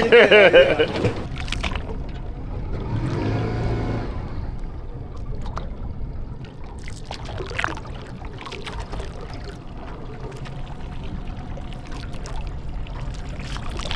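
Water sloshing and trickling around a fishing boat over a steady low rumble, with a few light knocks.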